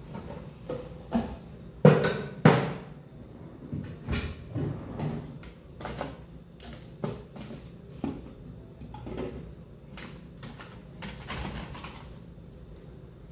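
Kitchenware being handled and put away: an irregular string of clinks and knocks, the two loudest about two seconds in, half a second apart.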